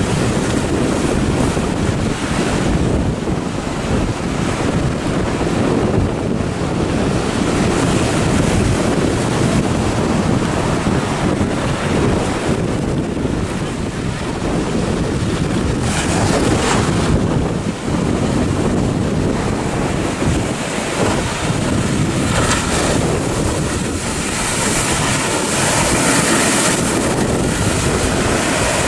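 Wind buffeting the microphone over the steady rush of ocean surf breaking.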